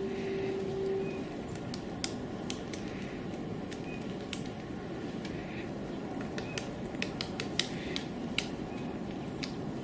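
Pied woodpecker pecking at tree bark: irregular single sharp taps, a few bunched close together about two-thirds of the way in, over a steady low background noise.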